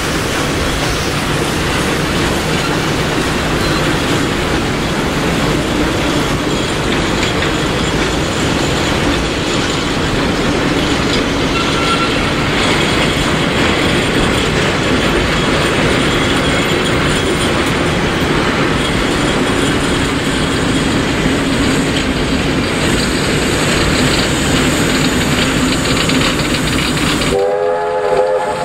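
Vintage passenger carriages of a steam-hauled train rolling slowly past: a steady rumble and rattle of wheels on the rails. Near the end a brief pitched tone sounds.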